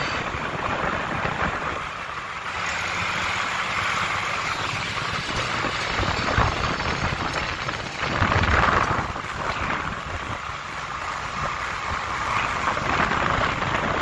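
New Holland T3.75 tractor's 75 hp common-rail diesel running as the tractor rolls downhill in fourth gear on a gravel road, mixed with tyre and wind noise. It grows louder for about a second around eight seconds in.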